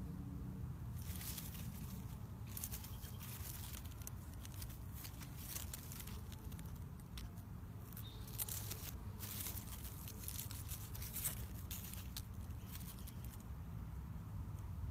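Tomato plant foliage rustling and crackling in irregular spurts as a hand brushes through the leaves and fruit trusses, over a low steady rumble.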